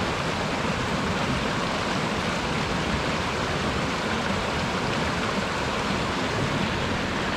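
Wind blowing steadily, a continuous rushing noise with low buffeting on the microphone.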